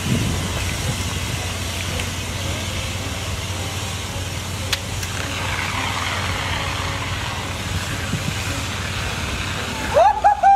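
A fire extinguisher hissing as it is sprayed into a burning pickup truck, over a steady low rumble. A voice shouts near the end.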